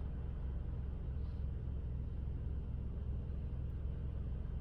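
Steady low rumble of road traffic, with a car driving slowly along the street.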